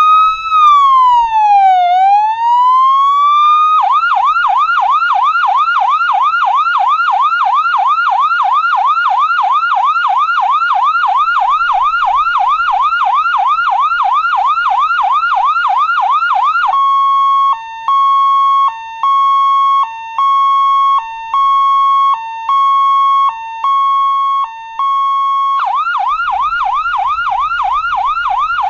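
Malaysian ambulance's electronic siren cycling through its tones: a slow wail falling and rising for the first few seconds, then a fast yelp of about three sweeps a second, then a steady high tone broken by short lower dips about once a second, then the fast yelp again near the end.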